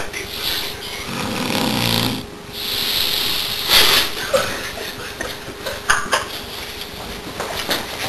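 A man snoring in his sleep: a low snore on the in-breath about a second in, then a long hissing out-breath, followed by quieter breathing and small snorts.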